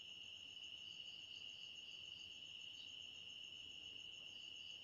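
Faint, steady, high-pitched insect trill with a fine regular pulse.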